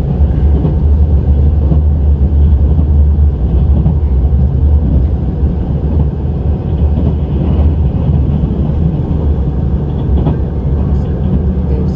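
A train running, a steady low rumble with rail noise over it.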